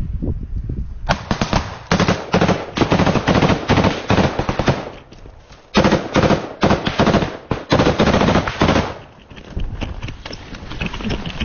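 Close-range automatic rifle fire in rapid bursts, starting about a second in, pausing briefly about halfway through, and easing off about two seconds before the end.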